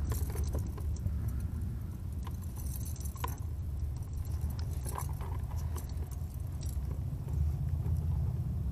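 Metal chain fish stringer and its snap clips clinking and rattling in scattered light clicks as it is handled with bowfin hanging on it, over a steady low rumble.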